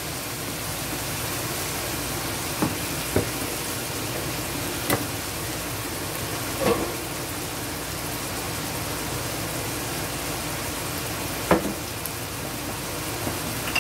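Vegetables sautéing in a stainless steel pan: a steady sizzle, with a few short clicks scattered through it.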